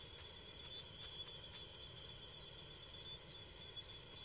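Faint night-time insect chorus of crickets: a steady high trill with short chirps about once a second.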